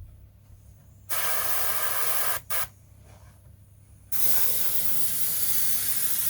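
Airbrush spraying a thin wash: a burst of hissing spray about a second in, a short second spurt, then after a pause steady spraying from about four seconds in.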